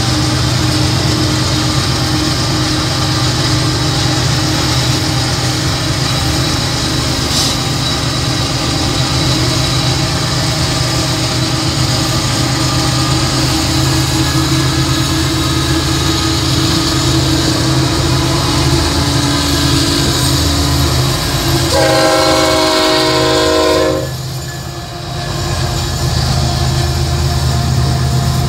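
BNSF diesel freight locomotives run alongside in a steady low rumble, heard from inside a car pacing them. Near the end the locomotive horn sounds once, a chord-like blast of about two seconds that cuts off sharply.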